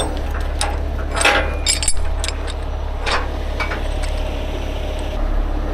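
A few sharp metal clinks and knocks from tow rigging hardware, a hook and strap at a pickup's front tow point, being handled, over a steady low rumble.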